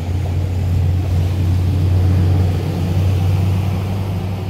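Low, steady motor rumble that swells a little around the middle and then eases.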